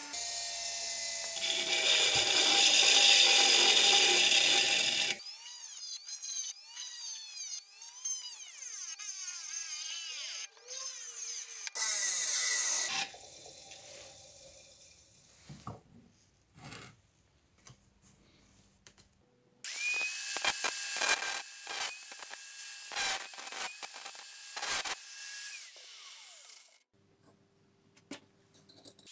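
Workshop power-tool noise in several abruptly cut segments, with whining tones, scraping and clicks, and short quieter gaps between them.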